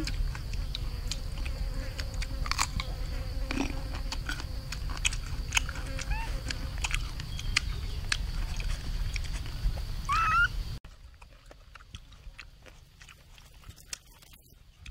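Crunchy chewing and biting, with many short clicks, over a steady high insect drone. A short rising animal call is heard about ten seconds in, and just after it the low background rumble cuts off abruptly.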